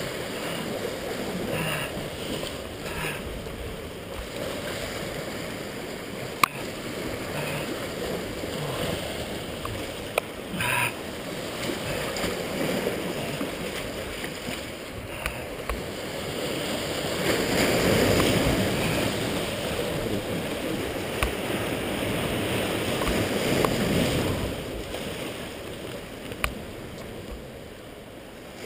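Steady rushing of wind on the microphone and sea surf washing against the rocks, swelling twice in the second half, with a few sharp clicks.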